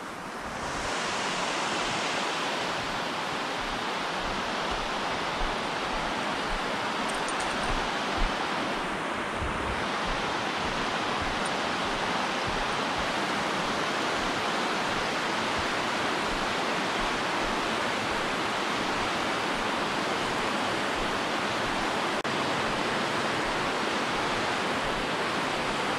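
Water rushing down a concrete spillway: a steady, even rush that comes up within the first second and holds.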